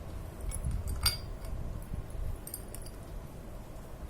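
Small steel parts of a bicycle freewheel clinking against each other as they are handled and fitted, a few sharp metallic clinks.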